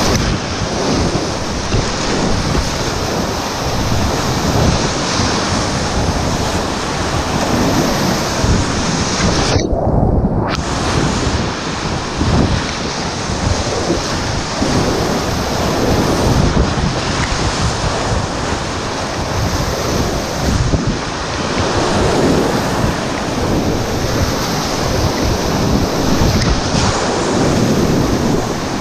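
Flooded whitewater river rushing and splashing around a kayak, with wind buffeting the microphone. About ten seconds in the sound goes muffled for about a second.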